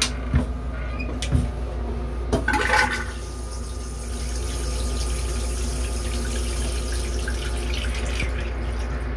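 Stainless steel toilet in a Metro-North M3 railcar flushing: a few knocks as the hinged seat is handled, then a rushing burst about two and a half seconds in and a steady rush of flush liquid into the bowl, over a constant low hum.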